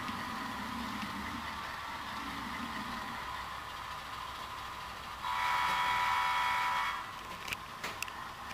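Bachmann HO-scale RS3 model diesel's factory-fitted Soundtraxx sound decoder playing a steady diesel engine sound through its small speaker, with one horn blast of about a second and a half a little past the middle. A couple of light clicks near the end.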